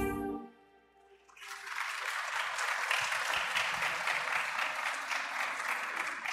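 A choir's final sung chord cuts off, and after a second of quiet the audience starts applauding and keeps clapping steadily.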